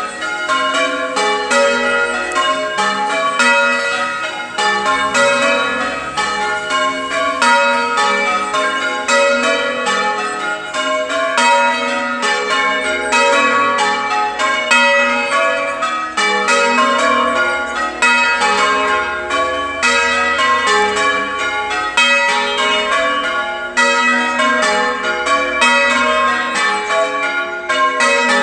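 Church tower bells rung in changes, English full-circle change ringing: a rapid, even stream of strokes, each bell ringing on into the next, with no break.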